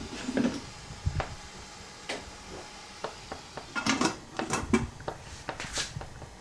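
Irregular knocks, clicks and clatters of household items being handled, with a busier cluster of clatter about four to five seconds in.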